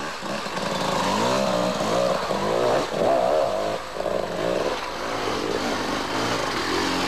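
Enduro motorcycle engines revving hard and dropping back over and over as they climb a rough trail, the pitch rising and falling every second or so.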